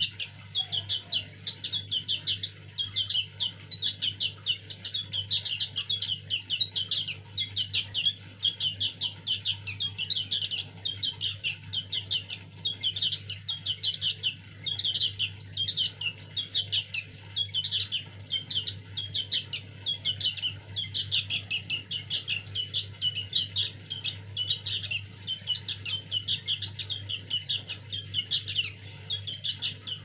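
Fledgling sooty-headed bulbul (kutilang) chicks calling without pause: short, high chirps about three a second, the begging calls of young birds still being hand-fed.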